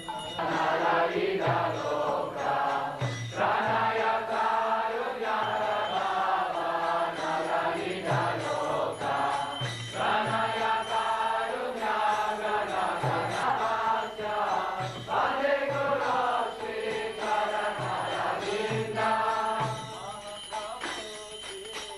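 A group of men chanting a devotional kirtan together, to the beat of a mridanga drum and the ringing of karatalas (small hand cymbals).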